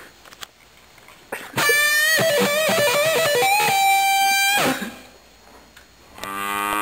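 Short electric guitar riff of a few bending notes ending on one held note, starting about a second and a half in and lasting some three seconds. Near the end a low, drawn-out call begins.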